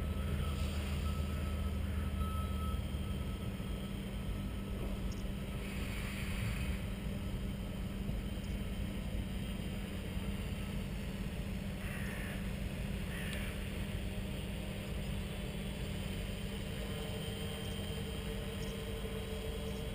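A multirotor drone's electric motors and propellers hum steadily while it hovers, holding its position under GPS control.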